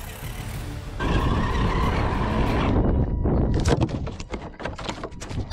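Electric RC crawler heard from a camera mounted on it: a steady motor whine over rumble and vibration, then from about three seconds in, rapid irregular crackling and clicking as the tyres crunch over dirt and small stones.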